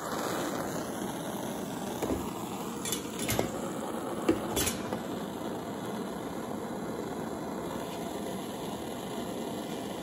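Handheld gas torch burning with a steady hiss while it heats a copper battery-cable lug to flow solder. A few light metallic clicks and taps come in the first half.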